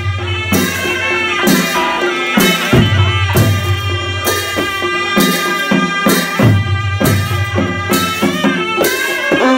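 A Nepali naumati baja ensemble playing: a reedy wind melody over a low held horn note, with a cymbal-like clash about once a second.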